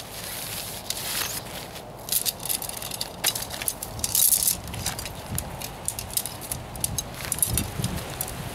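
Tent and its packaging being unpacked and handled: irregular crinkling and crackling, with a denser burst about four seconds in.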